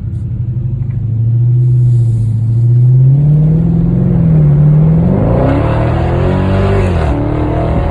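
Dodge Charger Scat Pack's 6.4-litre 392 HEMI V8 accelerating hard: the revs rise steadily, then climb steeply and fall back sharply at a gear change about seven seconds in.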